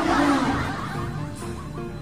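Background music: short plucked-string notes stepping up and down in a simple melody.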